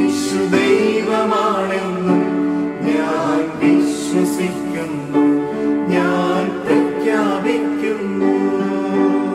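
Christian worship song: voices singing held, wavering notes over a steady instrumental backing.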